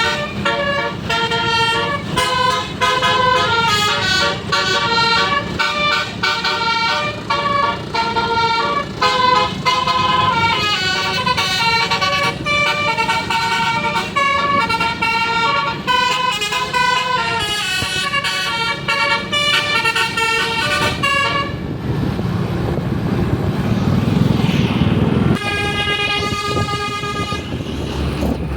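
Tour-bus telolet horn playing a fast melody of quickly changing notes for about twenty seconds. Then a few seconds of loud rushing vehicle noise with no notes, and a long held horn chord near the end.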